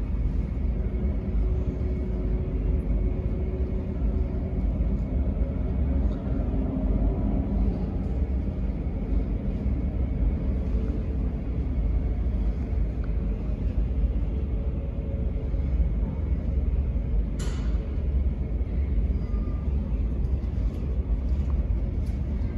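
Boeing 777-300 jet engines running during pushback: a steady, deep rumble with a faint hum above it. One brief sharp click about seventeen seconds in.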